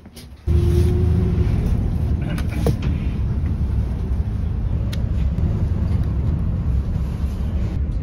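City bus cabin noise: the engine and road rumble run low and steady, starting abruptly about half a second in, with a few light rattles and clicks from the bus interior.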